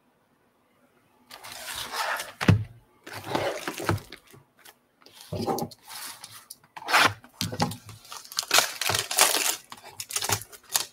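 Cellophane shrink-wrap being torn and peeled off a cardboard trading-card box by hand, crackling and crinkling in irregular bursts that start about a second in.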